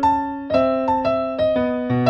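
Background music: a light melody played on an electric piano, a new note struck about every half second, each one fading before the next.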